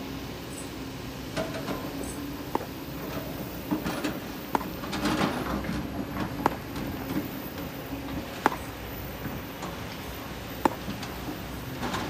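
Kobelco SK200 hydraulic excavator's diesel engine running steadily under digging load, with a sharp knock about every two seconds.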